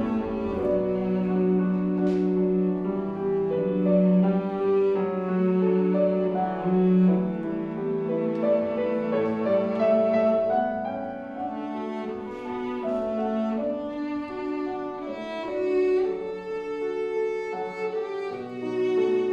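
Cello and Steinway grand piano playing a classical duet: the cello bows a melody of held notes over piano accompaniment, its line reaching higher in the second half.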